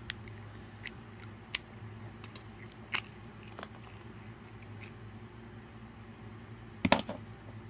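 Scattered sharp clicks and cracks as a thin Hatchimals toy egg shell is cracked and peeled apart by hand, with a louder cluster of cracks near the end, over a low steady hum.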